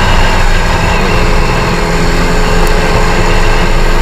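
Step-through moped engine running at a steady speed under way, with heavy wind rush on the microphone.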